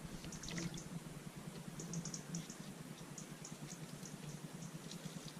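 A dirt bike's oiled air filter being squeezed and worked by hand in a tub of petrol, giving faint wet clicks and squelches in short clusters every second or so.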